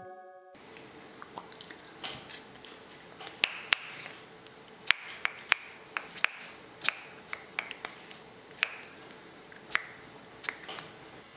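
Maine Coon cat biting and swatting at a feather wand toy: irregular sharp clicks and soft rustles, about one or two a second, over a faint steady hum.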